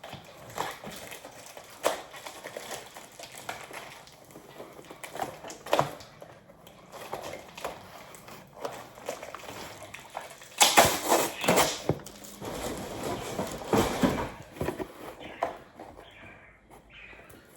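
Cardboard and paper packaging being worked at and torn by hand: rustling and crinkling with scattered clicks and knocks, and two louder stretches of tearing a little past the middle.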